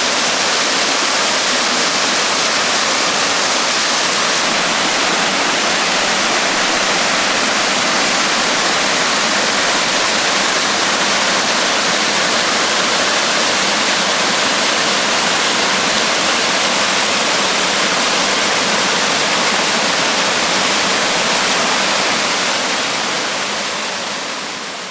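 Small waterfall running full after heavy rain: a steady rush of falling water that fades away near the end.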